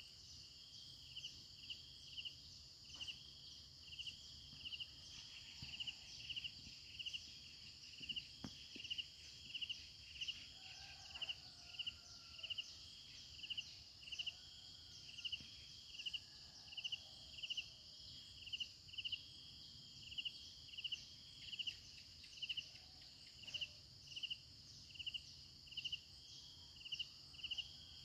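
Crickets chirping: a short chirp repeats evenly, about three every two seconds, over a continuous high trill.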